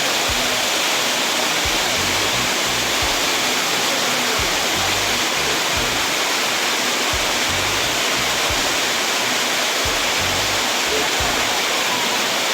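Steady, loud rush of a waterfall in heavy flow, with irregular low thumps of wind buffeting the microphone.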